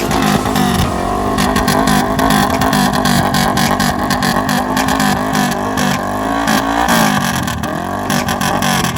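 Suzuki GSX400E Katana's parallel-twin engine revved over and over in a rhythmic 'call', the pitch rising and falling with each blip of the throttle.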